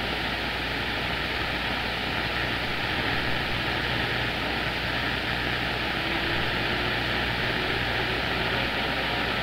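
CB radio receiver static: a steady hiss of band noise with a low hum under it, heard between transmissions on the 11-metre band.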